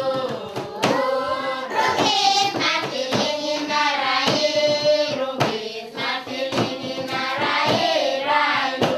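Background music: several voices singing a melody over a regular percussive beat, about one stroke a second.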